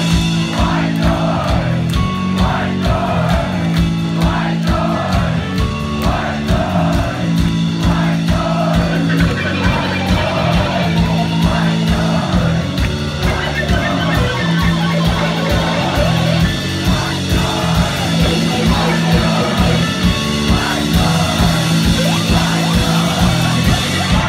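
Live rock band playing: sung vocals over electric guitars, bass and drums, loud and continuous.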